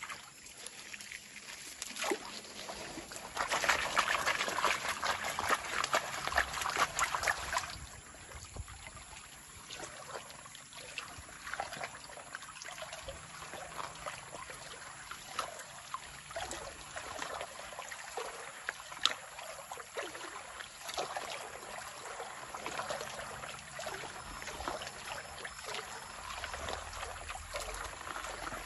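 Water sloshing and trickling as a gold pan of sand and gravel is stirred by hand and swirled in a shallow stream, with gravel rattling and clicking in the pan. It is loudest for a few seconds near the start, then settles into steadier sloshing as material is washed over the pan's rim.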